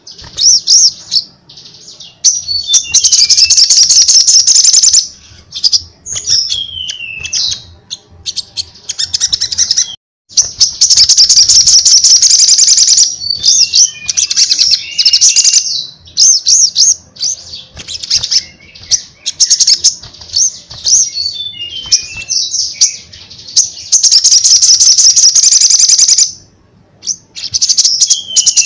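Caged male olive-backed sunbird (sogon) singing loudly in long bursts of very fast, high-pitched trills broken by short falling notes, with a couple of brief pauses.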